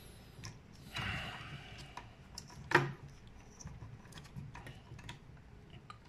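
Handling noises of a lead being fitted to the positive terminal of a fire alarm panel's backup battery: light ticks, a brief rustling scrape about a second in, and one sharp click near the middle.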